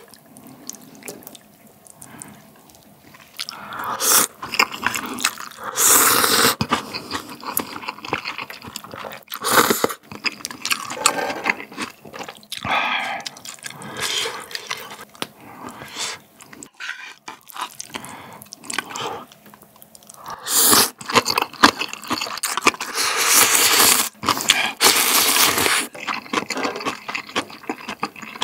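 Close-miked eating of spicy instant ramen noodles and soft tofu: several long, loud slurps of noodles and broth with chewing and small clicks between them.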